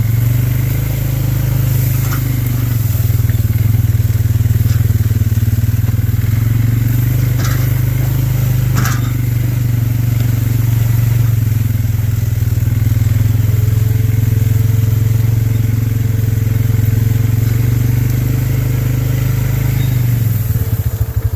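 A vehicle engine running steadily while driving, a low drone, with a few sharp clacks about 2, 7 and 9 seconds in.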